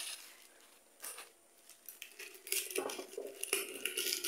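Clear plastic bag crinkling and dry avocado leaves rustling as they are handled and pulled out by hand, starting about two seconds in, with small clicks and clinks among the glass jars.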